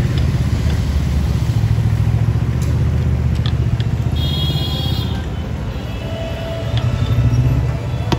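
Steady low rumble of a vehicle travelling on the road, with a brief high-pitched tone about four seconds in.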